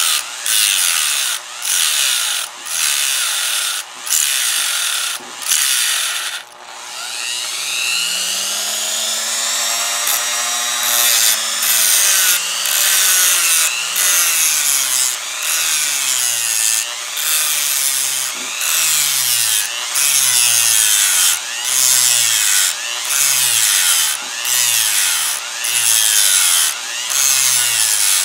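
Handheld rotary tool with a small cut-off disc cutting into a laptop fan's frame: short grinding cuts about once a second, the motor's pitch dropping each time the disc bites. About six seconds in, the cutting stops and the motor's pitch rises and falls before the cuts start again.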